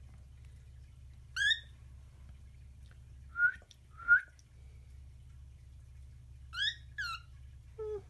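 Cockatiel giving short, soft whistled chirps, five in all, spaced a second or two apart with the loudest about four seconds in, the last two in a quick pair. These are her sweet attention-seeking calls, not the shrill squawking she makes when hormonal.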